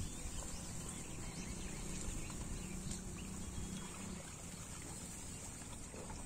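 Outdoor rural ambience: a steady high hiss over a low, gusty wind rumble on the microphone.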